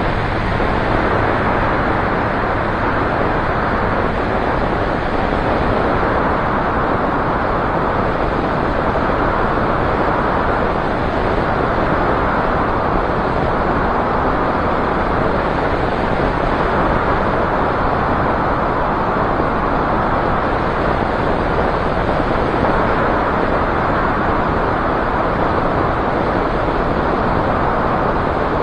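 Light single-engine propeller aircraft in cruising flight, heard from an outside-mounted camera: a steady rush of engine, propeller and airflow noise, with no change in power.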